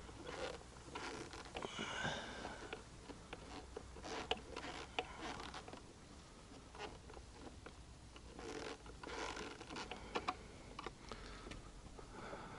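Faint scattered clicks, scrapes and rustles of an ATV headlight being loosened and re-aimed by hand at its adjuster, with a few sharper clicks about four and five seconds in and near the ten-second mark.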